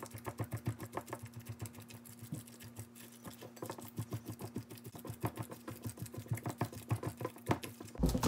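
Wooden pestle crushing soft boiled azuki beans in a stainless steel mesh strainer: a quick, steady run of soft knocks and squishes, several strokes a second.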